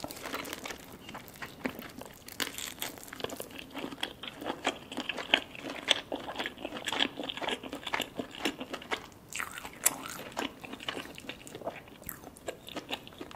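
Close-miked eating: biting into lobster meat with green papaya salad and chewing it, a dense run of irregular crunches.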